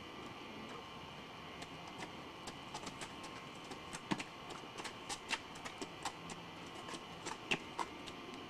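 Footsteps of people walking in a low stance on a concrete path: irregular sharp taps and scuffs of shoes, a few a second, starting about a second and a half in, over a faint steady hum.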